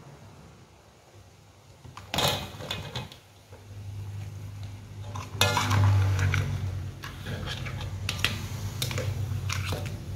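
Metal ladle clanking and scraping against an aluminium wok as pieces of corn on the cob are added to crabs and stirred. There is a brief knock about two seconds in, then a busier run of clanks from about five seconds in.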